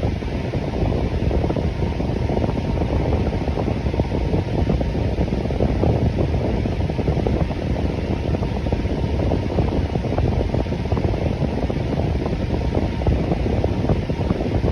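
Electric fan running steadily: an even, unbroken whoosh of moving air, deepest and strongest in its low range, with no clicks or changes.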